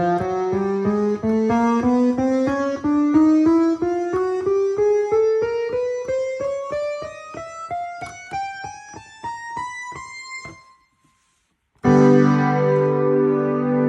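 Ensoniq SD-1 synthesizer keyboard playing an electric-piano-like sound: single notes climb one after another, about four a second, growing fainter as they rise. After a brief pause a loud chord is struck and held near the end.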